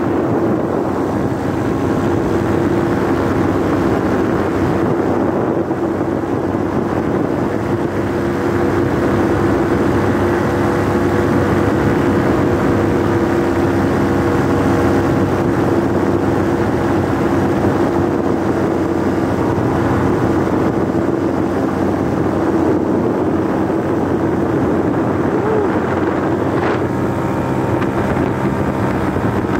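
Paramotor engine and propeller running steadily at cruise power in flight, a constant drone with an even pitch.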